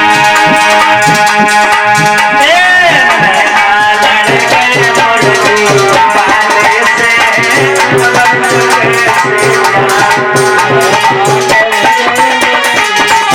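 Loud music: held melody tones with a gliding line about three seconds in, over a steady beat with rattling, shaker-like percussion that thickens in the second half.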